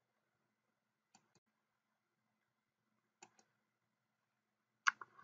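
Faint computer mouse clicks, two quick double clicks and then a sharper single click near the end, over near silence.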